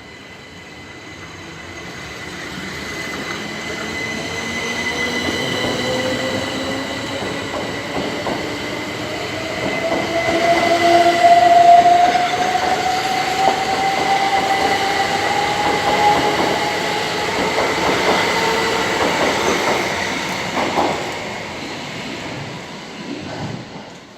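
Two coupled Class 375 Electrostar electric multiple units pulling away and accelerating. The traction motors whine in a steadily rising pitch, and the wheels click over the rail joints. The sound builds, holds, then fades away near the end.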